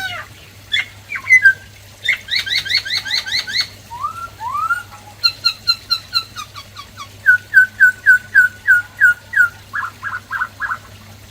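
White-cheeked laughingthrush singing, switching between several phrase types: a fast run of repeated whistled notes, two rising slurs, then a long series of clear downslurred notes and a quick trill near the end.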